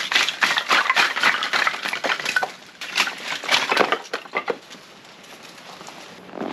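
Split firewood logs tipped out of a mesh bag, clattering and knocking onto each other as they pile up on gravel. The clatter is dense for the first four and a half seconds, then dies down to a few scattered knocks.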